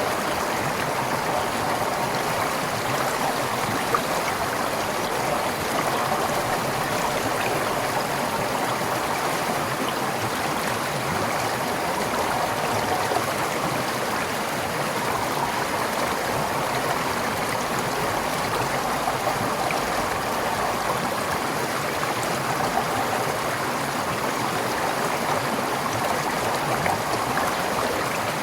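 Forest stream flowing steadily over rocks, a continuous rushing and gurgling of water.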